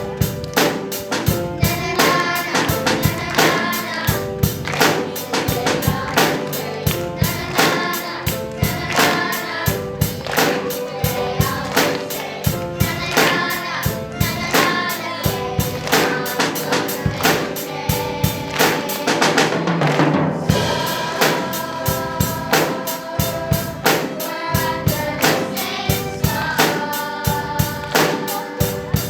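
Song with singing voices over a steady drum-kit beat, with a short break about two-thirds of the way through.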